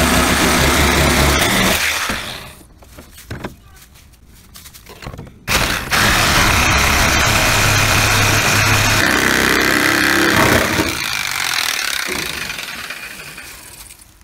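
A power tool working on the rusted sheet metal of the old truck body. It runs, cuts out about two seconds in and starts sharply again a few seconds later. It then winds down slowly near the end, as a spinning tool does when released.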